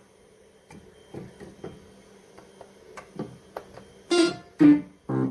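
Roland Juno-60 analog polyphonic synthesizer played in short notes. A run of quiet notes comes first, then three louder notes near the end.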